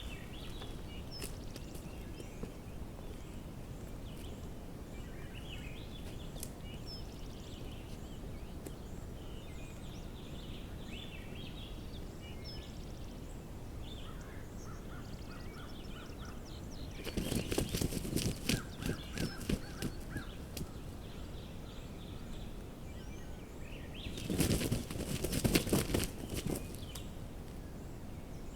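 Woodland ambience with faint songbirds chirping, broken twice by loud bursts of rustling and thrashing in dry leaves, the first about seventeen seconds in and the second about twenty-four seconds in, each lasting two to three seconds.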